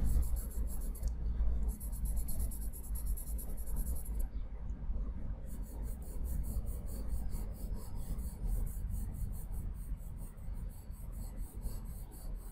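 Charcoal pencil shading on layout paper: continuous, uneven scratchy strokes of the lead rubbing back and forth across the sheet.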